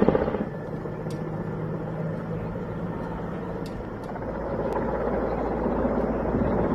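Helicopter flying overhead, its rotor and engine running steadily. The sound grows louder from about four seconds in.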